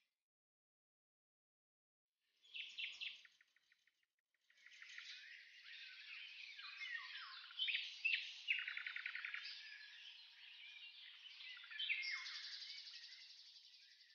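Birds chirping and twittering: a short burst of quick chirps about two and a half seconds in, then, after a brief gap, a continuous chorus of overlapping chirps and trills.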